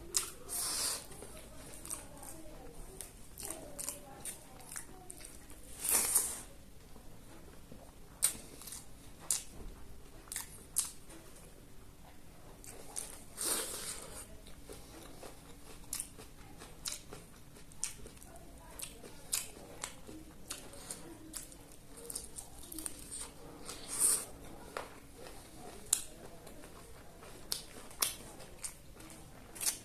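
A person eating close to the microphone: sharp biting, clicking and smacking sounds every second or so while chewing. A few longer crunching, tearing sounds stand out as the loudest moments.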